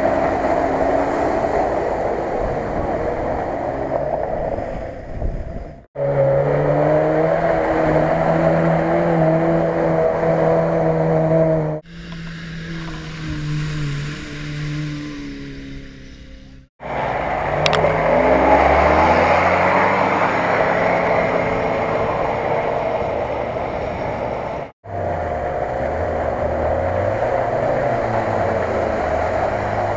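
Off-road 4x4 engines working through deep mud, the pitch holding steady in places and rising and falling with the throttle elsewhere. The sound is split into several short segments by four abrupt cuts.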